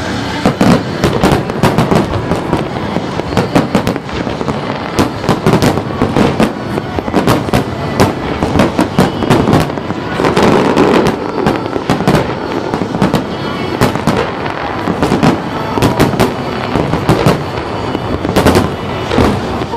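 Large fireworks display: shells bursting in a rapid, irregular series of loud bangs, several a second, with crackling in between.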